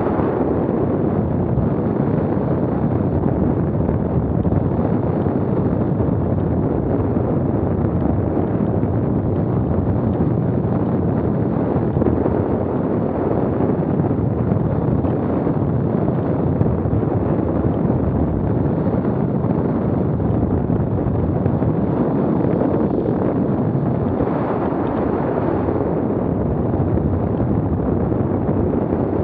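Wind buffeting the microphone: a steady, heavy rumble that does not let up.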